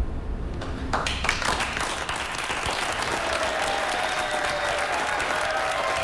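The last held music note fades out, then a room of guests breaks into steady applause about a second in.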